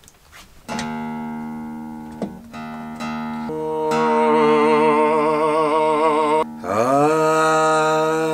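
Acoustic guitar being tuned: single strings plucked and left to ring, then a long held note wavering in pitch, and near the end a note that slides up and holds.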